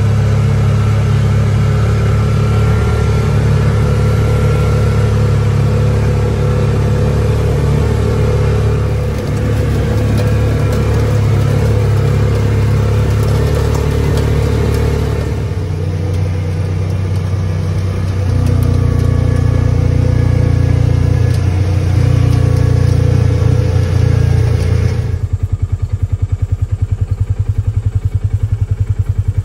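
Side-by-side utility vehicle's engine running steadily while it drives over a grassy farm track, heard from the cab. Near the end it turns quieter and takes on an even pulsing.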